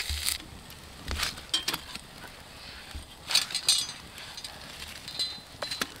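Wood campfire crackling, with irregular sharp snaps and pops and a few light clinks.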